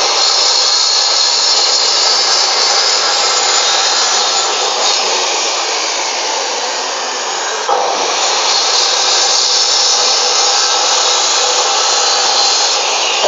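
Maktec 2000-watt cut-off saw with a 7-inch, 100-tooth aluminium-cutting blade, running and cutting through cattle bone in a homemade bone-cutting machine: a loud, steady, high whine. It eases off slightly around six seconds in, then jumps back up suddenly nearly eight seconds in.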